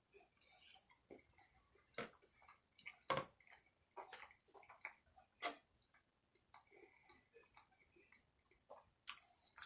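Faint, irregular wet clicks and smacks of someone chewing food close to the microphone, a few seconds apart.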